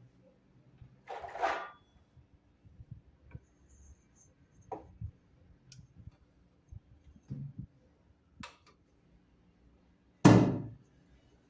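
Tools and parts being handled during washing-machine repair work: a short scrape about a second in, a few scattered light clicks and knocks, and one heavy thump near the end.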